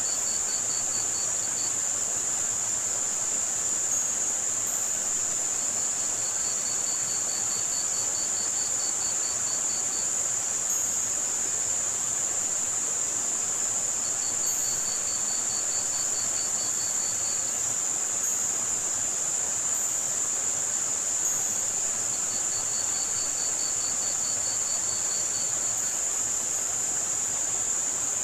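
Layered tinnitus-masking sound: a steady high-pitched band of white noise, with crickets trilling in spells of three to four seconds about every eight seconds and faint short high chirps. Underneath is a soft, even rush of running water.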